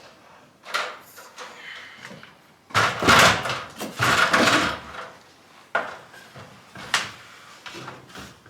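Pipe wrench worked on an old threaded gas pipe to unscrew it: scattered metal knocks and clanks, a loud stretch of scraping and rattling about three seconds in, and a sharp knock near the end.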